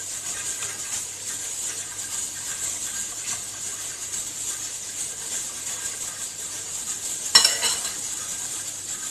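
Kitchen dishes and utensils being handled, with one sharp clink about seven seconds in, over a steady hiss.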